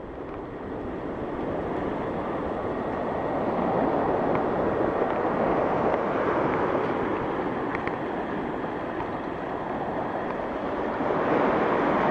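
Steady rush of water where river water runs out through a hand-dug channel in the sand bar blocking the river mouth, mixed with small waves breaking on the beach and wind on the microphone. It grows louder over the first few seconds and again near the end.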